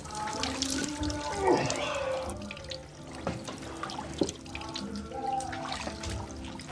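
Tap running into a bathroom sink, water splashing in the basin as hands are washed under it; a man groans over the sink.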